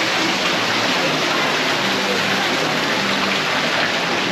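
Water falling from a tall sculpted fountain into its pool, a steady splashing rush.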